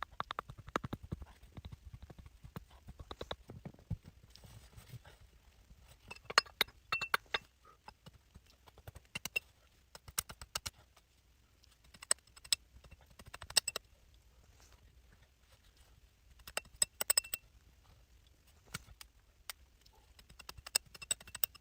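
Irregular clusters of sharp clicks and knocks, some with a brief ringing high tone.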